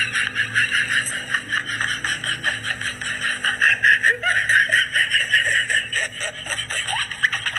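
Continuous rapid, high-pitched laughter with quick giggling pulses.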